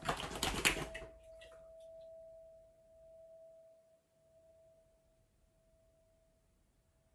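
Singing bowl ringing on one steady tone that slowly fades away. In the first second a loud burst of rapid clicks and rattles sounds over it, a few more following briefly.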